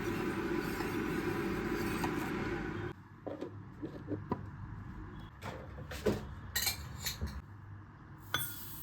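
A steady rushing noise cuts off about three seconds in, followed by a series of light clinks and knocks of dishes and containers being handled on a kitchen counter.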